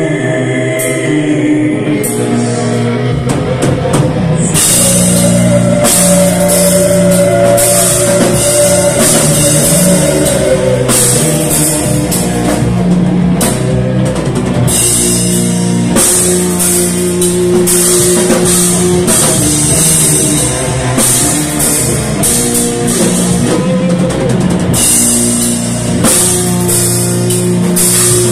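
Metal band playing live: distorted guitars, bass guitar and drum kit, with the drums and cymbals coming in fully a few seconds in after a quieter opening.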